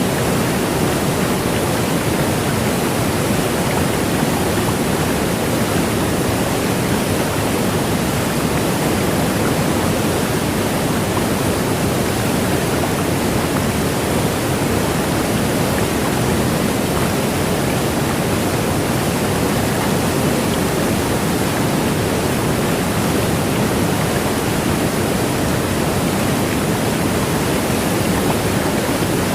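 Heavy cloudburst rain pouring down: a loud, steady, dense rush of water noise with no let-up.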